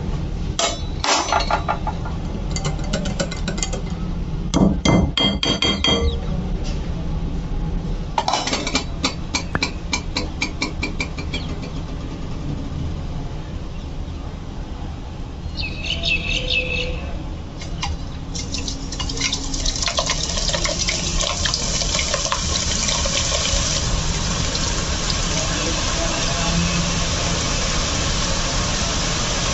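Metal utensils clink against a glass bowl of besan batter. A little past halfway, batter dropped through a slotted ladle into hot oil starts a steady sizzling hiss as the boondi fries.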